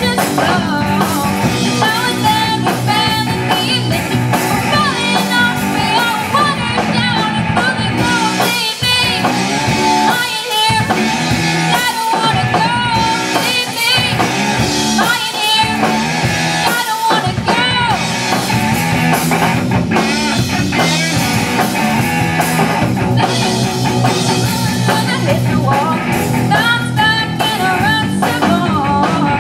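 Live rock band playing: a girl singing lead over electric guitar, electric bass and a drum kit. The bass and drums drop out briefly a few times midway.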